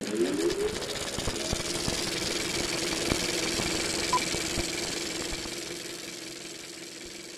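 Sound-design sting for an animated logo ident: it starts suddenly with a short rising sweep, then settles into a steady hum under a bright hiss with scattered ticks, and fades away over the last couple of seconds.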